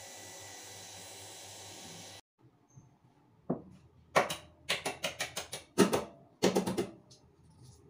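A steady hiss that cuts off about two seconds in, then a run of about a dozen sharp, irregular knocks and clinks over some three seconds as kitchenware is handled at the counter.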